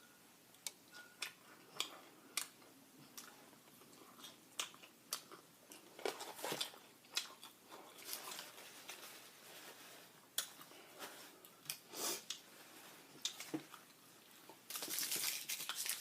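Close-up eating of Popeyes fried chicken: crisp crunching bites and wet chewing, with many short sharp crackles. A longer, louder spell of crackling noise comes about a second before the end.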